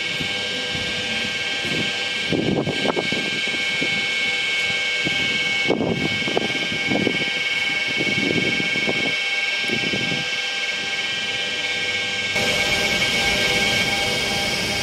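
Train running: a steady high-pitched whine of several held tones, with irregular rumbling and clattering surges every few seconds. The sound changes abruptly about twelve seconds in.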